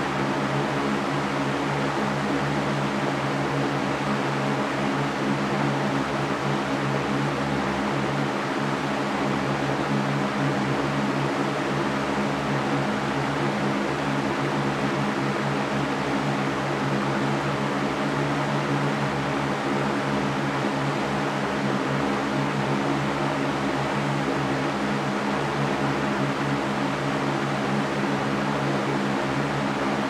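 Fan running steadily: an even, unchanging airy hiss with a low hum beneath it.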